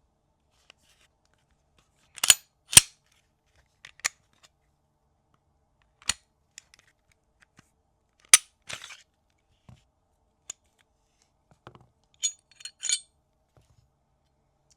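Sharp metallic clicks and clacks of a Glock 45 pistol being handled. There are two loud clacks about half a second apart a little after 2 s, a single loud clack past 8 s, and another pair near the end, with lighter ticks between.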